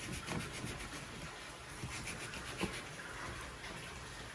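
Kitchen knife slicing through fatty charque on a wooden cutting board, with a couple of light knocks of the blade against the board over a steady background hiss.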